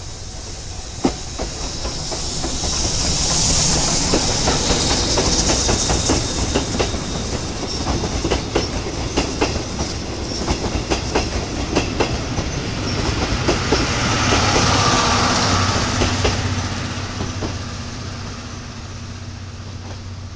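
Steam-hauled passenger train, a C58 steam locomotive and its coaches, passing close by. The wheels clack irregularly over the rail joints, with a rushing hiss as it goes by, and the sound fades as the last coaches pass.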